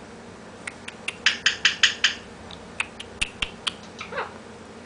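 Alexandrine parrot making scattered sharp clicks and a quick run of about five short raspy notes, then a short falling whistle near the end.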